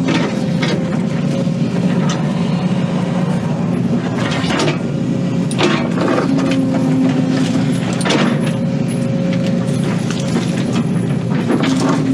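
Excavator diesel engine running steadily under working load, with sharp cracks and snaps of wood and roots several times as the machine works a felled tree's root ball.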